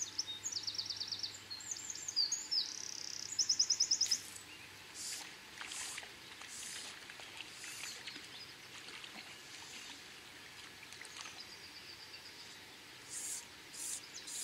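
Small songbirds singing in the riverside trees: several quick, high trills and chirps, the loudest about three to four seconds in, with a faint steady hiss of river water underneath.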